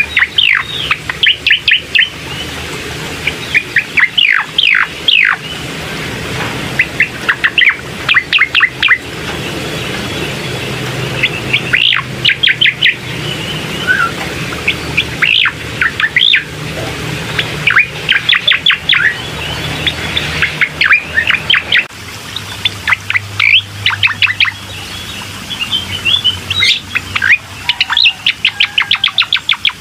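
Cucak koreng songbird singing: quick runs of sharp, descending chirps that come in bursts every second or two, over a low steady hum. This is a lure recording used to trigger other cucak koreng into song.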